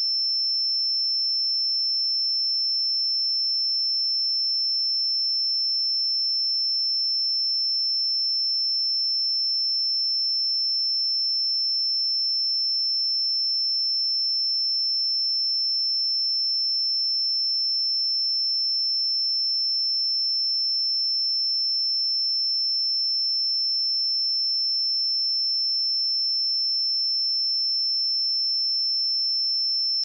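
A pure 5336 Hz sine-wave test tone: a single steady high-pitched whistle that holds one pitch and one loudness throughout.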